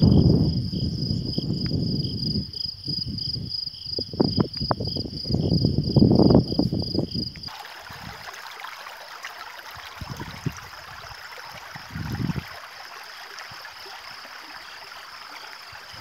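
A high, rapidly pulsing insect trill over gusts of wind rumbling on the microphone. About seven seconds in it cuts to a shallow stream trickling steadily over stones, with a fainter trill behind it.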